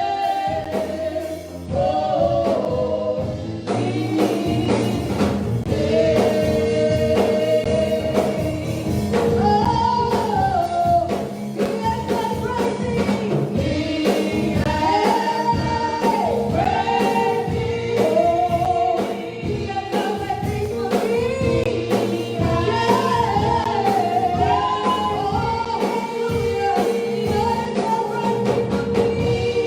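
Congregational gospel praise singing: voices carrying a gliding melody over steady held accompaniment notes.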